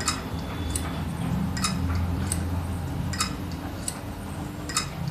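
Opened 2.5-inch laptop hard drive powered up, its head arm clicking at an even pace, about one click every three-quarters of a second, over a low steady hum. The drive is failing to read and is not recognised, which the owner says could mean a faulty controller board.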